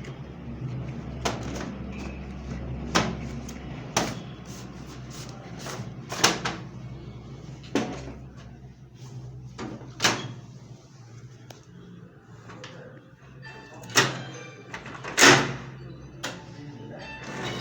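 Canon imageRUNNER 1024 copier: a steady low hum with irregular sharp clacks and knocks, about eight of them, the loudest two near the end.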